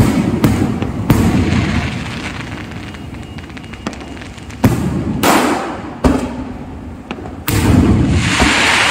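Fireworks going off: about six sharp bangs, spaced irregularly, each fading away in a long rumble, with a sustained crackling hiss near the end.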